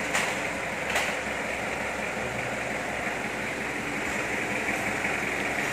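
Steady workshop background noise: a low mechanical hum under an even hiss, with two light clicks in the first second.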